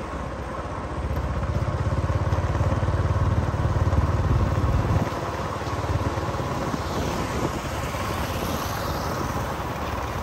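Road vehicle noise while driving in traffic: a low engine and road rumble that grows louder about a second in and eases off about five seconds in.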